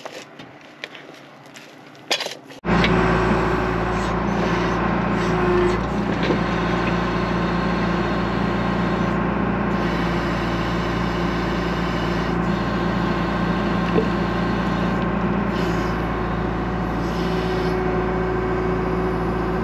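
John Deere 310 backhoe's diesel engine running steadily, coming in abruptly about three seconds in after a quieter start with a few clicks.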